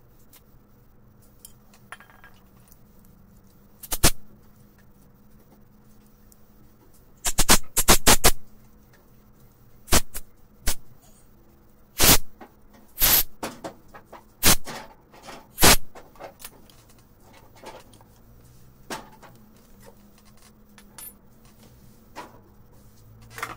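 Short hissing blasts from a compressed-air blow gun and an aerosol spray can, blowing out and cleaning the parts of a disassembled carburetor. There are about ten blasts, a quick cluster of them about seven to eight seconds in, the last about sixteen seconds in.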